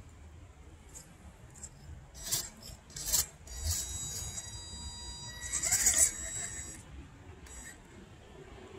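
RGT D90 RC crawler's electric motor and drivetrain whining high under short bursts of throttle as it scrabbles over dirt. Two brief spurts come a couple of seconds in, then a longer pull with a steady high whine, loudest about six seconds in.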